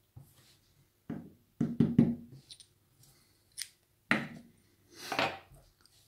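Small handling knocks and clicks from a brass lock cylinder and metal tweezers worked in the fingers, irregular and separate, loudest about two seconds in, with a short rustle about five seconds in.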